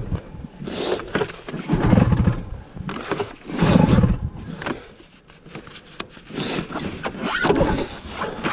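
Recoil pull-starter of a Yamaha snowmobile yanked hard three times, about two seconds apart, each pull a rasping whir of rope as the engine turns over, then a few weaker, uneven pulls near the end. The engine has stalled and is being pull-started again.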